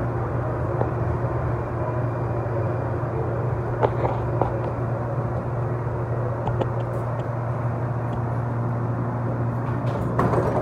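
Cabin noise inside a Siemens S70 light-rail car arriving at a station: a steady low hum from the car's running gear and equipment, with a few light clicks and knocks.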